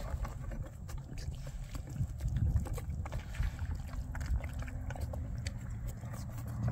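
Young horse eating wet mash from a plastic feed pan: wet slurping and chewing with many quick, irregular smacks and clicks, over a steady low rumble.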